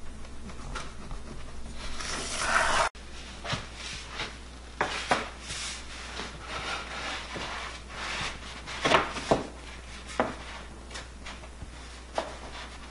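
Wooden window casing trim rubbing and knocking against the window frame as it is held up and fitted, with scattered light taps. A rushing handling noise in the first few seconds cuts off suddenly.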